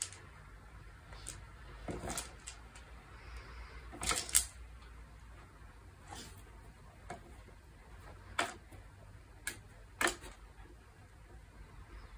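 Hard plastic cups of a spinning dog treat puzzle clicking and knocking on their bar as a dog nudges them round with its nose, with the dog's snorts and sniffs at the cups. The knocks come irregularly a second or two apart, the loudest a double knock about four seconds in.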